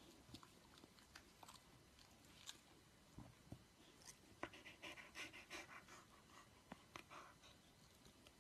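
Near silence, with faint scattered clicks and a short run of soft rasping sounds about halfway through.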